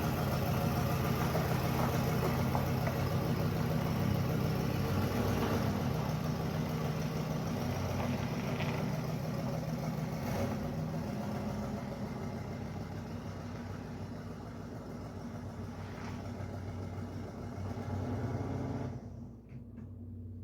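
Vehicle engine running steadily, slowly growing quieter, then shut off about a second before the end.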